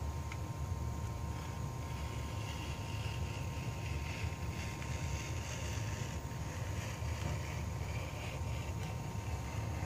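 Edge beveler shaving a thin strip off the edge of a leather sole: a soft, continuous scraping that starts about a second and a half in. A steady low hum sits underneath it throughout.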